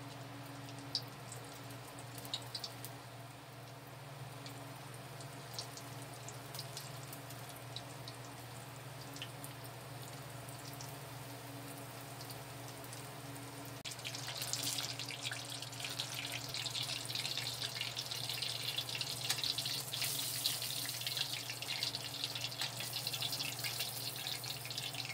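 Egg rolls deep-frying in hot oil in a stainless steel pot: steady bubbling sizzle with scattered sharp pops and crackles, turning much louder and denser about fourteen seconds in. A low steady hum runs underneath.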